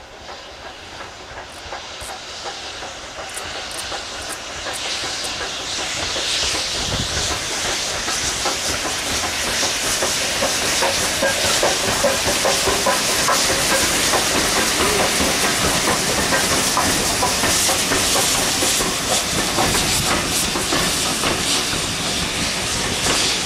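Steam train approaching and passing: LMS 'Crab' 2-6-0 No. 13065 hissing steam, growing louder over the first ten seconds or so, then its coaches rolling by with a rapid clicking of wheels over the rail joints.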